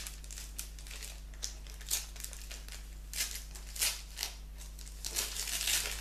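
Gift wrapping crinkling and rustling as a small package is unwrapped by hand, in short scattered crackles that get busier near the end.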